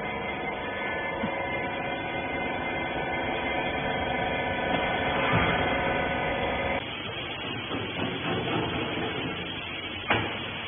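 Hydraulic rag baler running, its electric pump motor giving a steady hum of several held tones. About seven seconds in the sound changes abruptly to a rougher, noisier machine sound, with a single knock near the end.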